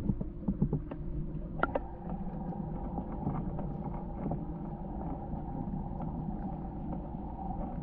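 Underwater sound in a swimming pool: a steady, muffled low rumble with a constant hum, and a few faint clicks in the first couple of seconds.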